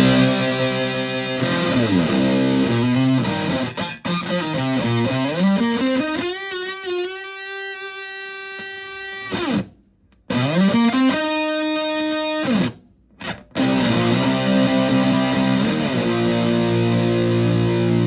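Fuzzed electric guitar, a Stratocaster played through a Tone Bender MKI fuzz pedal and a filter into a Fender Twin Reverb-style amp. The notes slide up and down in pitch, then a long note wavers with vibrato. It cuts off briefly twice near the middle before sustained fuzz notes ring out.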